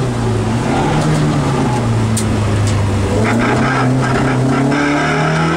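Rally car engine heard from inside the cabin. Its note drops about a second in as the car comes off the throttle, then climbs again over the last couple of seconds under acceleration. A few short clicks or rattles come near the middle.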